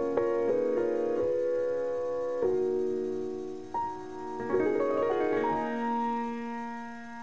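Slow piano music: struck chords and single notes left to ring and fade, with a quicker run of notes about five seconds in.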